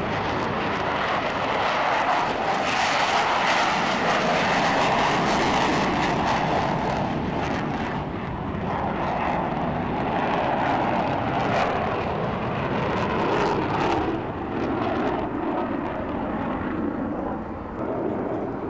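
Jet engine noise from two Mitsubishi F-2 fighters, each with a single afterburning turbofan, flying past overhead: a loud, dense rush that is strongest in the first several seconds, with crackling from the exhaust around the middle, easing off near the end.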